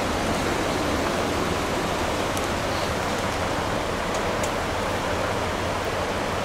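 Rushing river water: a steady, even wash of flowing current.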